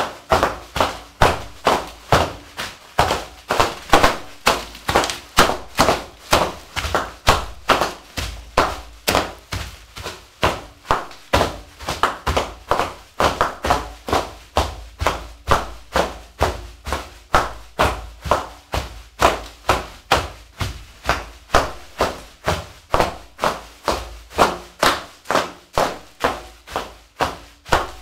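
A steady rhythmic beat of sharp percussive strikes, about two a second, each with a short ring.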